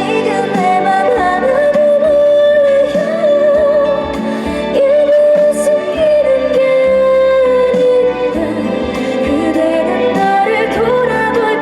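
A slow trot ballad performed live over a backing track, with a long, wavering melody line carrying the tune and no break in the music.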